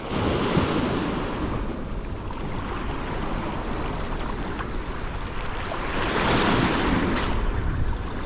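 River waves splashing and washing against a rocky shoreline, with wind buffeting the microphone. The surge of water swells shortly after the start and again around six seconds in.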